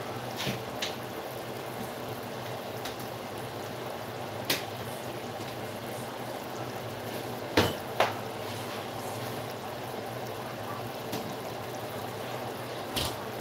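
Chicken adobo sauce simmering in a pot, bubbling steadily, with a few short sharp clicks, two of them close together about halfway through.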